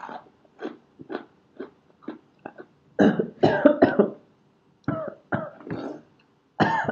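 A man coughing repeatedly, choking on a mouthful of spicy coated-peanut snack: a run of short coughs, the hardest bunched about three seconds in.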